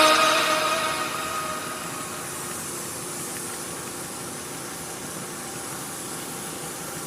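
Electronic background music fading out over about two seconds, leaving a steady hiss with no beat.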